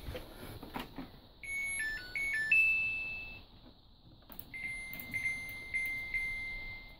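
Samsung Eco Bubble washing machine's electronic beeper playing its short power-on melody of stepped notes, after a couple of clicks at the start. A longer steady high tone from the machine follows and holds to the end.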